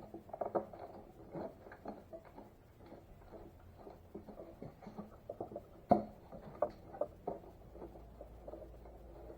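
Irregular light clicks, taps and rattles as a three-wheeler's fender is handled and set in place, with one sharper knock about six seconds in.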